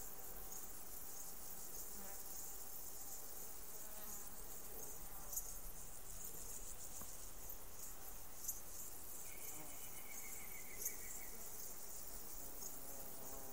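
Insects chirring steadily in a high, fast-pulsing trill, with a brief lower trill about nine seconds in. Three sharp clicks come about five, eight and a half, and eleven seconds in.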